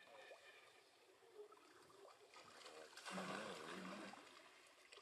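Near silence: faint outdoor ambience, with a brief, louder noisy sound lasting about a second, about three seconds in.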